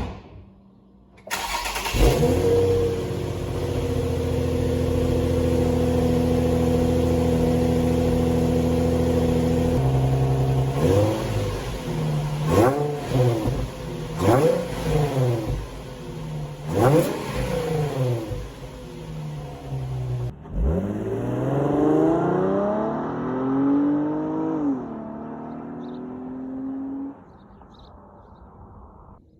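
Nissan 350Z's 3.5-litre V6 through its exhaust: it starts up and settles to a steady idle, then gets four short throttle blips. After a brief break it gets one longer rev that climbs and falls back.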